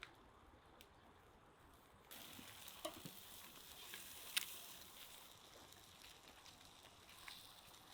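Faint sizzling of fish grilling over charcoal. The sizzle starts up suddenly about two seconds in, with a few sharp pops.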